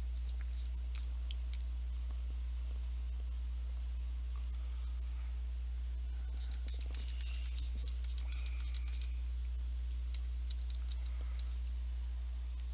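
Steady low electrical hum, with faint scratching and light clicks from a drawing tablet stylus and keys, a denser run of scratches about halfway through.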